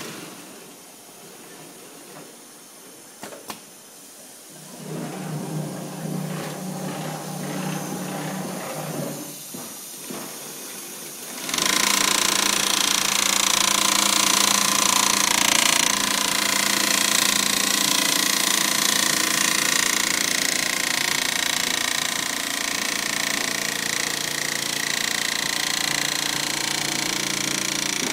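Gantry mattress quilting machine sewing a padded mattress panel. It runs quietly with a low motor hum at first, then about a third of the way in the stitching suddenly turns loud and continuous, a fast rattling chatter of the needle head.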